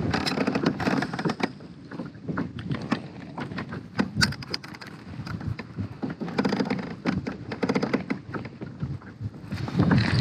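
Scattered small clicks and knocks from a baitcasting rod and reel being handled in a plastic kayak, over a low wash of water and wind.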